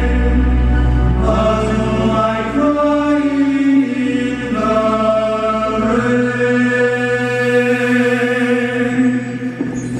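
Male choir singing long, held chords in Gregorian chant style, the chord changing a few times, over a low bass note that fades out about a second in.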